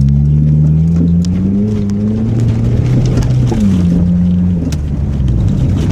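Nissan Altima's 2.4-litre four-cylinder engine pulling under acceleration. Its pitch climbs, then drops sharply about three and a half seconds in, as at a gear change, and carries on at a lower pitch.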